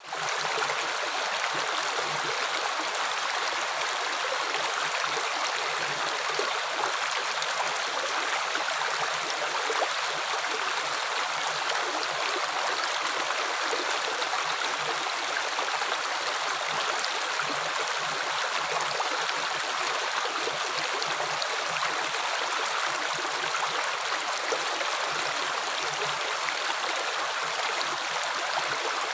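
Water running and splashing in a steady, unbroken rush, with a brief dropout at the very start.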